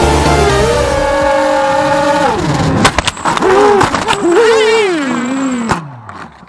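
The background music stops about two seconds in. Then comes the whine of a 250-size FPV quadcopter's brushless motors (Dragonfly MC1806 with DAL 5045 bullnose props), rising and falling in pitch, with a few sharp clicks as the propellers strike branches when the quad flies into a tree. Near the end the motors wind down with a falling whine.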